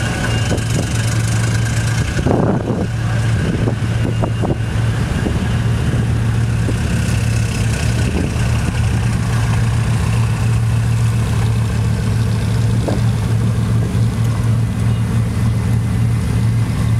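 Bugatti Veyron Grand Sport Vitesse's quad-turbocharged W16 engine idling with a steady low hum, with a few light knocks about two to four seconds in.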